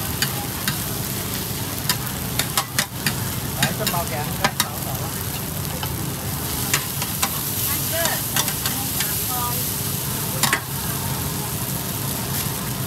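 Food sizzling on a large flat iron wok while metal spatulas scrape and clack against the pan, giving sharp metallic clicks over the steady frying noise, several close together a couple of seconds in and another loud one about ten seconds in.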